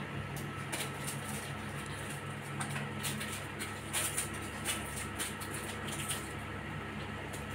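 Kittens' paws and claws tapping and scuffling on a tile floor as they tussle, irregular light clicks with a few louder taps about halfway through, over a steady low hum.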